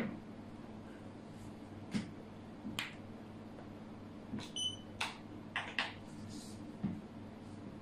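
Xiangqi pieces clicking down on the board, and a digital chess clock's button pressed with a short electronic beep about halfway through. A few more sharp clicks of pieces and the clock follow near the end.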